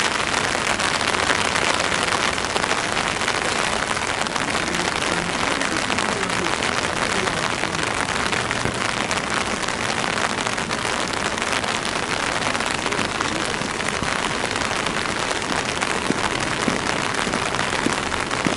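Steady rain falling on wet pavement, a constant even hiss with the patter of drops.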